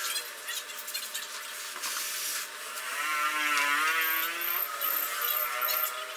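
A small power tool's electric motor whirring for a couple of seconds, starting about halfway through and tailing off near the end, with scattered knocks and clatter around it.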